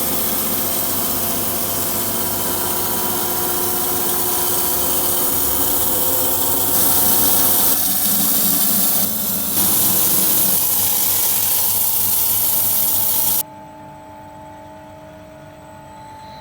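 Sawmill blade cutting through a turkey oak log, a loud steady hiss over the hum of the mill's motor. About 13 seconds in, the cut ends and the sound drops sharply to the motor running on alone.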